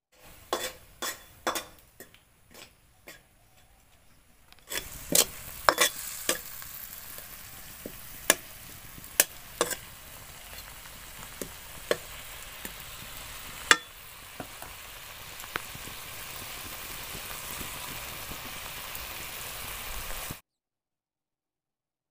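Meat frying in a wok, sizzling steadily while a metal spatula stirs and scrapes it, with sharp clinks of the spatula against the pan. The first few seconds hold only scattered clinks and taps before the sizzle starts, and the sound cuts off suddenly near the end.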